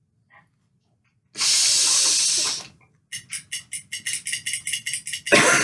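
A person snorting powder up the nose: one long, hard snort, then a quick run of short sniffs at about seven a second, then another loud snort near the end.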